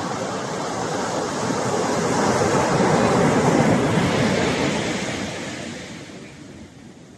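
Ocean surf on a beach: a broad rush of breaking wave noise swells to its loudest about three seconds in, then fades away near the end.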